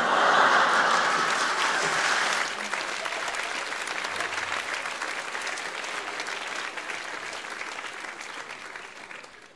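Theatre audience applauding at the end of a sketch, loudest in the first two seconds or so, then fading and dying out near the end.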